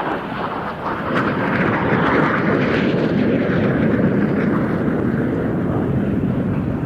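Jet engine noise of Czech L-159A Alca light combat jets flying by, a rushing roar that builds over the first two seconds and then holds loud and steady.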